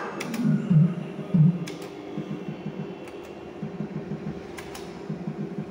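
Bar video slot machine spinning its reels: a fast, low electronic pulsing, with a sharp click about every second and a half.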